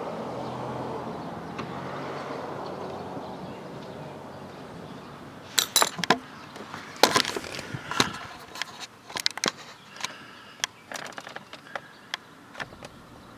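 A steady rushing noise fades away over the first few seconds. Then, from about halfway through, comes an irregular run of sharp clicks and knocks as windshield-repair tools and equipment are handled.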